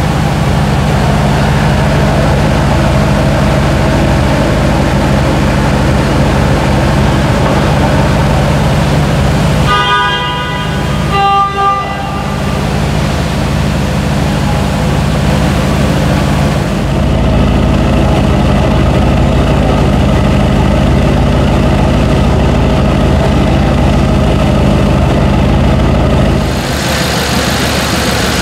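BMW M5 F10's twin-turbo V8, tuned to about 750 hp and fitted with an Akrapovic exhaust, idling steadily; it gets louder about seventeen seconds in. About ten seconds in, a car horn sounds twice briefly. Near the end the idle is heard from the open engine bay.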